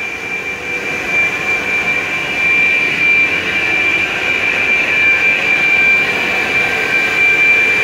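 Steady machinery noise in a working steam boiler house: an even rush with a constant high whine, growing a little louder about a third of the way in.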